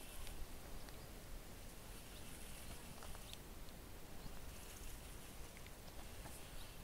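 Spinning reel being cranked on a retrieve: faint soft ticks and brief light whirring, over a low wind rumble on the microphone.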